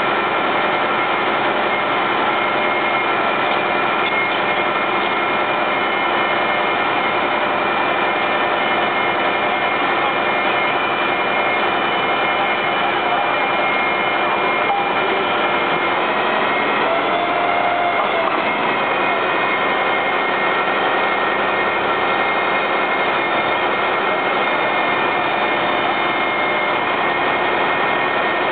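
Fire engine diesel running steadily at raised revs during firefighting, an even loud engine noise with a constant whine.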